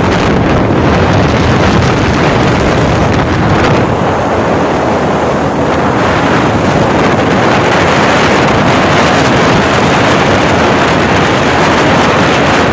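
Wind rushing over the microphone of a phone filming from a moving motorcycle: a loud, steady roar of wind noise.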